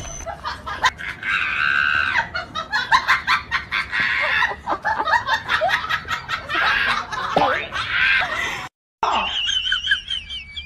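Laughter in quick repeated bursts with high squeals, stopping abruptly about nine seconds in. It is followed by faint, thin, high chirping whistles.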